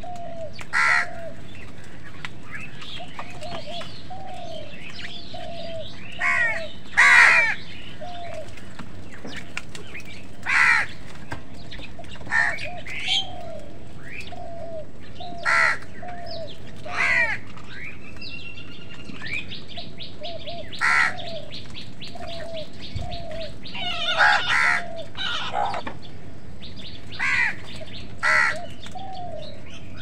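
House crows cawing: about a dozen harsh calls, some in quick pairs, the loudest about seven seconds in. Beneath them a soft, short, lower note repeats steadily about once a second.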